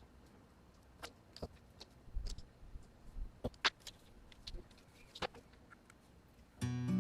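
Scattered light clicks and knocks of the handheld steam iron and tools being handled while it is checked for a fault. Acoustic guitar music starts near the end.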